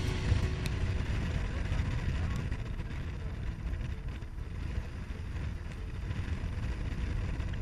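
Strong wind buffeting the microphone as a steady low rumble, with surf breaking on the jetty rocks.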